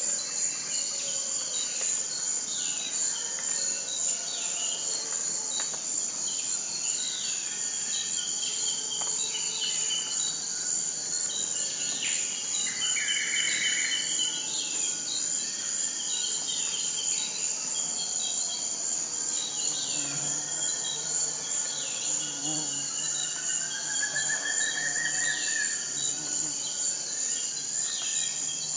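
Steady high-pitched insect chorus, with frequent short bird chirps over it and a brief trill about halfway through.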